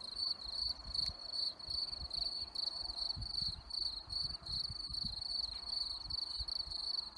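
Crickets chirping steadily in a high, even pulse, about three chirps a second, with a low uneven rumble underneath.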